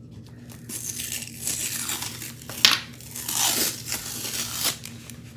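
Tape being peeled off a rolled diamond-painting canvas, with the paper wrapping rustling and crinkling as it is handled and opened, and one sharp crack about two and a half seconds in.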